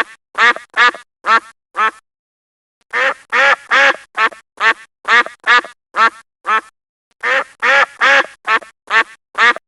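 A duck quacking in a rapid series of short, nasal quacks, about two to three a second, with two brief pauses.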